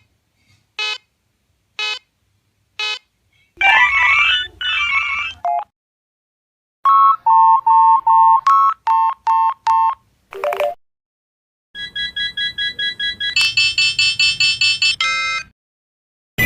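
A sequence of different electronic battery-low alert tones, one after another. First three evenly spaced beeps about a second apart, then a warbling two-part chime, a short run of stepped tones, and finally a fast string of rising beeps.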